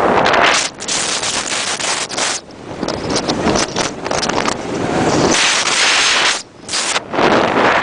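Wind rushing over the microphone during a downhill ski run, mixed with the hiss of skis sliding over snow, with a few brief lulls.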